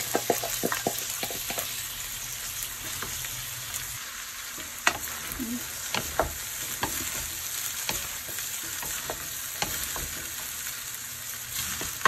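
Fried rice sizzling in a hot metal pan while a wooden spatula stirs and scrapes it, with frequent sharp taps and knocks of the spatula, a quick run of them in the first second or so.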